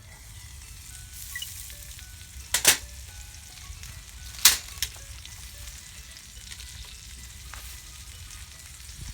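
Meat sizzling as it cooks on a grill, with two sharp pops a couple of seconds apart, the first about two and a half seconds in.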